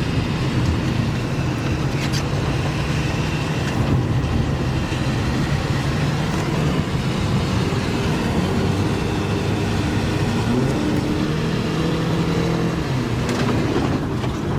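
A car driving along, with a steady engine hum and road rumble heard from inside. The engine note shifts a few times through the middle and latter part.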